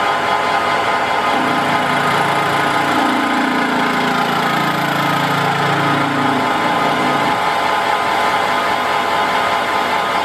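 Metal lathe running under power while the tool takes a cut across the face of a spinning flange, lubricated with kerosene: a steady mechanical hum, joined by a lower droning tone from about a second in until about seven seconds.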